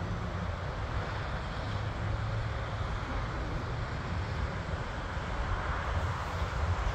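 Jet engines of a departing jet, a steady distant roar with a deep rumble underneath.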